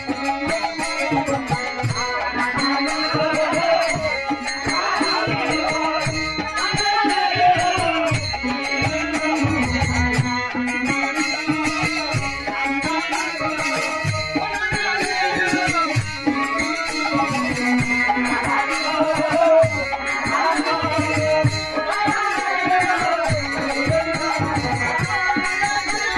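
Kirtan: Hindu devotional group singing, a melodic chant that carries on throughout, over steady strokes of a hand drum and the jingle of small hand cymbals.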